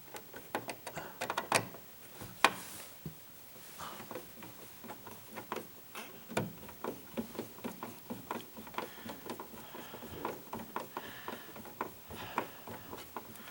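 Irregular small clicks and knocks of a dimmer switch being handled and pushed into a wall electrical box, with two sharper knocks about one and a half and two and a half seconds in.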